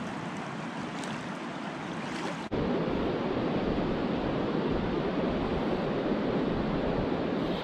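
Steady rush of fast-flowing river water, with some wind on the microphone. About two and a half seconds in it switches abruptly to a louder, deeper rush.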